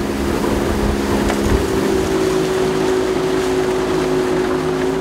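Small boat's outboard motor running under way, a steady engine drone over a rush of wind and water. Its pitch rises a little about a second and a half in, then holds.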